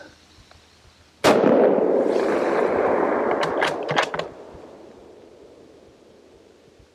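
A single hunting-rifle shot about a second in, its report rolling on and slowly fading over the next three seconds or so. A few sharp clicks follow near the middle.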